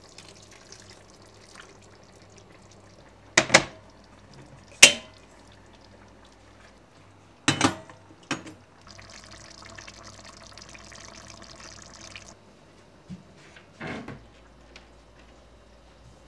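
Kitchen tap running for about three seconds, among several sharp knocks and clinks; the loudest knock comes about five seconds in.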